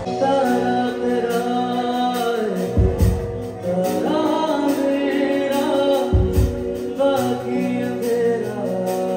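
Live band playing: a male singer over electric guitar, keyboard and drum kit.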